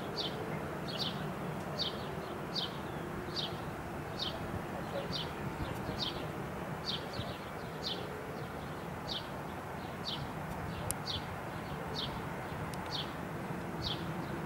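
A bird chirping over and over, a short falling chirp a little more than once a second, over a low steady background rumble.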